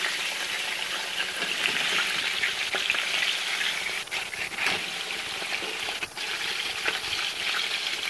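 Marinated pork ribs sizzling steadily as they fry in oil in a nonstick frying pan, with scattered small crackles and pops.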